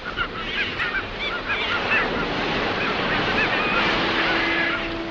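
A flock of gulls calling, many short rising-and-falling cries overlapping, over a steady wash of sea noise.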